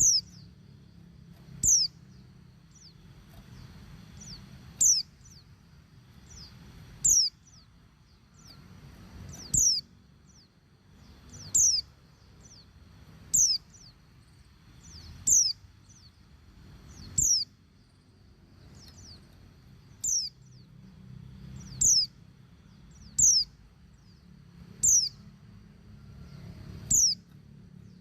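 A female white-eye (pleci) giving short, high, sharply falling single call notes, repeated about every two seconds, the contact call kept to prompt males to sing. A faint low hum runs underneath.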